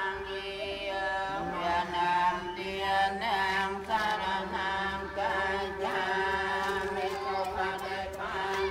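Buddhist prayer chanting by several voices together: a steady held tone runs underneath, with overlapping voice lines shifting in pitch over it.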